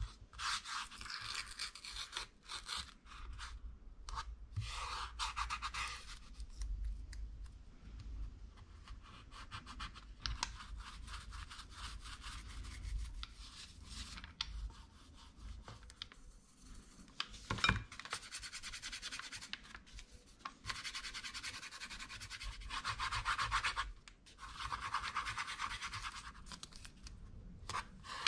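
Masking tape pulled off the roll and torn into strips, and a sponge paint roller rolling acrylic paint across a wooden panel: several rasping, crackly stretches of a few seconds each, with a single knock about 18 seconds in.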